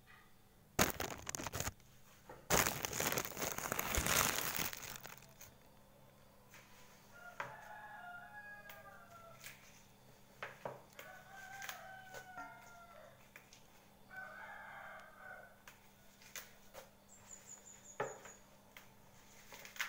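Loud rustling and handling noise for the first few seconds, then light snaps and clicks as spinach leaves are picked off their stems. An animal calls three times in the background, each a drawn-out call with gliding pitch.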